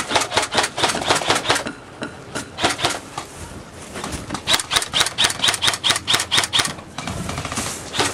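Airsoft gun firing three quick strings of shots, several clicks a second, the last string the longest, followed by a brief rustle near the end.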